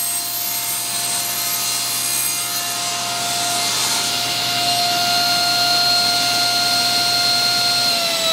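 Table saw running at full speed with a steady whine while a wooden crosscut sled carries a workpiece through the blade, the blade cutting wood. Near the end the saw is switched off and its pitch begins to fall as the blade spins down.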